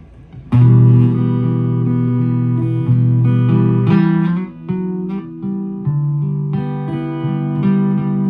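Acoustic guitar playing: a chord struck about half a second in and left to ring for a few seconds, then a run of changing chords and plucked notes.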